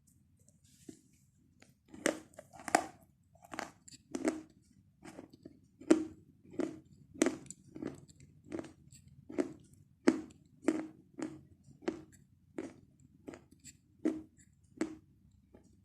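Chalk being chewed close to the microphone: sharp, dry crunches in a steady rhythm of about one and a half a second, starting about two seconds in.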